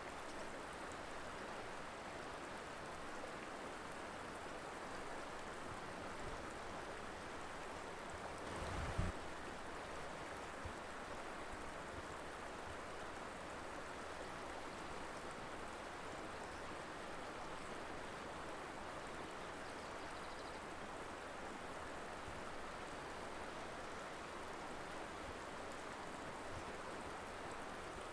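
Colorado River flowing: a steady rush of moving water, with a brief low thump about nine seconds in.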